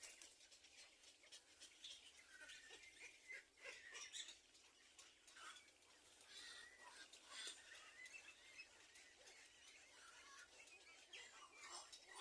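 Small birds chirping faintly in short, scattered high calls.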